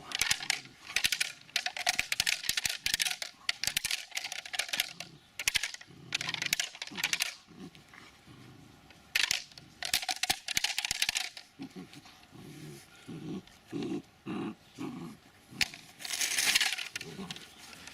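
Dobermann dogs at play: repeated bursts of scratchy, clattering noise, with a run of short low dog sounds a little past the middle.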